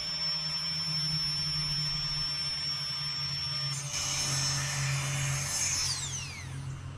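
Small electric air pump running with a steady whine, changing note about four seconds in, then spinning down with a falling whine as it is switched off about six seconds in.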